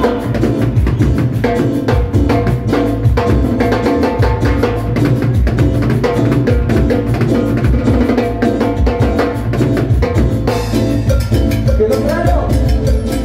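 Live band playing Latin dance music: accordion and keyboard over timbales and congas keeping a steady, driving beat. The sound changes about ten seconds in.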